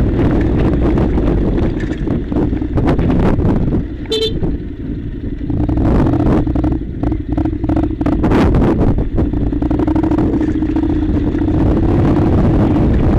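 Honda NC700 motorcycle's parallel-twin engine running steadily on a rough gravel track, with frequent short knocks and rattles from the bumpy surface. The engine eases off around four seconds in, where a brief high tone sounds, and then picks up again.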